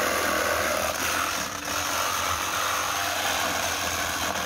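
Cordless reciprocating saw running steadily as its blade saws through a thin-walled 4x4 light-steel box section.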